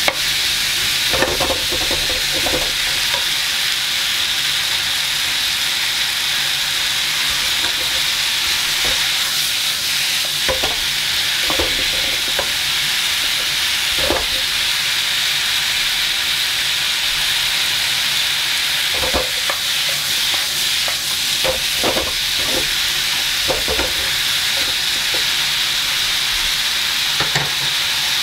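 Vegetables sizzling in a hot frying pan with a steady hiss, while a wooden spatula stirs and tosses them, scraping and knocking against the pan every few seconds.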